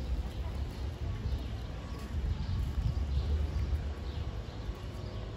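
Footsteps of people walking on pavement, about two steps a second, over a low rumble.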